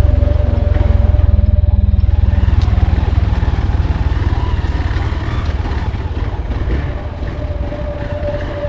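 Motorcycle engine running with a fast, even low pulse and a steady hum above it, gradually getting quieter.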